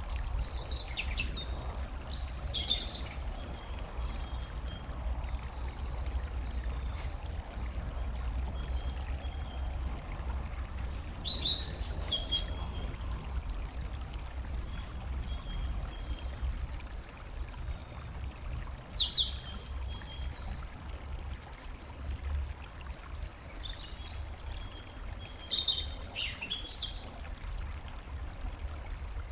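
Small songbirds singing short, high chirping phrases in four separate bouts, over a steady low rumble and the faint rush of water.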